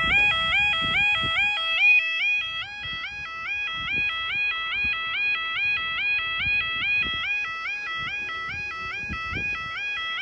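Level crossing's two-tone alarm sounder warbling steadily, its pitch switching evenly between high and low a little under twice a second. It is the warning that the crossing is closed to road traffic for a train.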